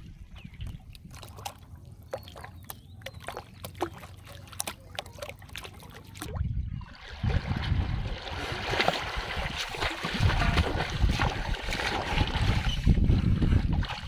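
Water sloshing and splashing as someone wades through shallow floodwater pushing a metal pot. The first half is quieter, with light trickling and small ticks; from about seven seconds in the sloshing is steady and much louder.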